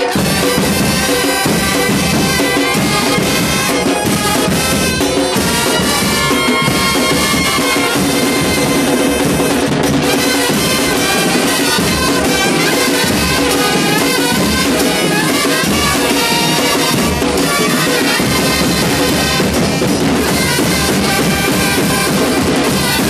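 A band playing: brass instruments holding notes over a drum kit with bass drum and snare.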